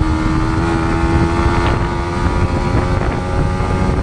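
Yamaha MT-15's single-cylinder engine running at speed, holding one steady pitched note, under heavy wind rumble on the microphone.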